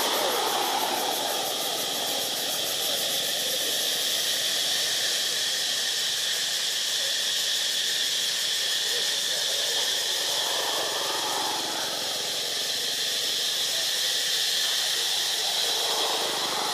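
Steady high-pitched hiss.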